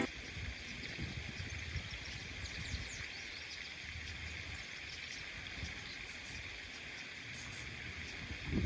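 Quiet outdoor ambience: a steady hiss with faint, scattered high chirps and a low rumble of wind on the microphone.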